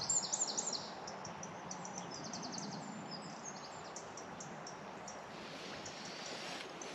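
River water flowing steadily, with a small bird's high chirps and quick twittering runs, busiest in the first few seconds.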